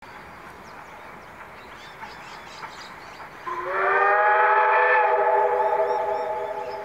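Steam whistle of a South Maitland Railways 10 class steam tank locomotive sounding one long blast about three and a half seconds in, sliding up in pitch as it opens, then holding several steady tones and tailing off near the end. Faint birdsong before it.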